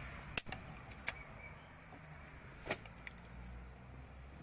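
Scissors snipping the excess tails off plastic cable ties: three sharp snips, a little under a second and then a second and a half apart, with a few fainter clicks between.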